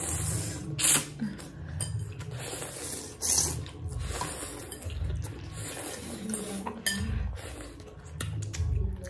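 Noodles of thukpa soup being slurped into the mouth, several long hissing slurps, with light clinks of fork and spoon against the bowls.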